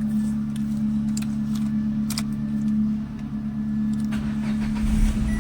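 Renault Kwid's three-cylinder petrol engine idling steadily after its clogged fuel filter was cleaned, with a few light clicks and rattles over it and a brief low rumble near the end.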